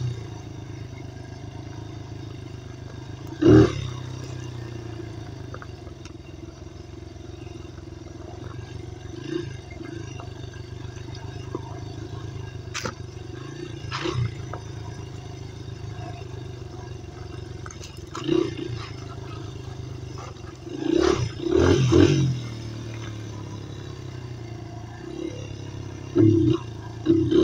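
Dirt bike engine running at a low, steady speed while being ridden, with a few short loud bursts: one about three and a half seconds in, a pair around twenty-one to twenty-two seconds, and more near the end.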